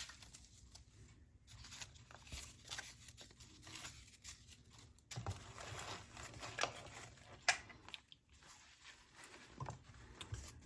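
Hands rummaging through loose packing peanuts: faint, irregular rustling and crunching with scattered small clicks.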